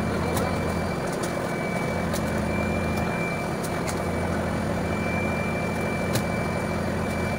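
Fishing boat's engine running with a steady low drone, a thin high whine coming and going above it, and a few sharp knocks from fish being handled on deck.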